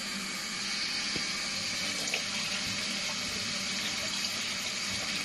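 Kitchen tap running steadily into a bowl and a stainless steel sink while butterfly pea flowers are rinsed by hand, water splashing and pouring over the bowl's rim.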